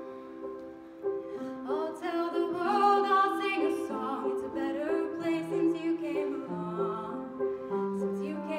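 A girl sings a slow solo, coming in about a second and a half in, over a softly repeating instrumental accompaniment.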